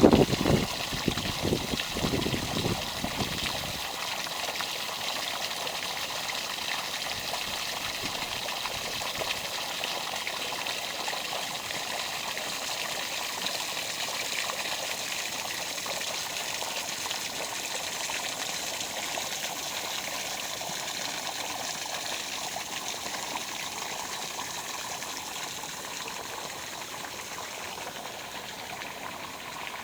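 Water running steadily with a rushing, trickling sound, with a few heavy low thumps in the first four seconds.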